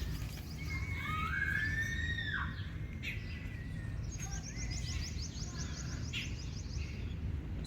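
Outdoor ambience with bird calls over a low steady rumble: a gliding whistled call that rises and falls about one to two and a half seconds in, then a fast high trill from about four to six and a half seconds.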